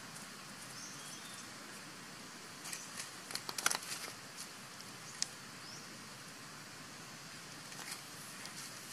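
Leaves and twigs of a sapling rustling and crackling as a baby macaque climbs through it: a short flurry of sharp clicks about three seconds in, a single click a little after five seconds and a few weaker ones near the end. Faint high chirps sound in the background.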